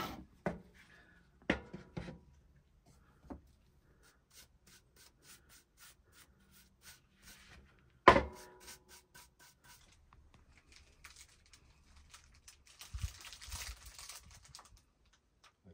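Paintbrush stroking undercoat onto the edge of a wooden table top: a soft, repeated brushing rub, about three strokes a second, with a few knocks and one sharp knock about eight seconds in.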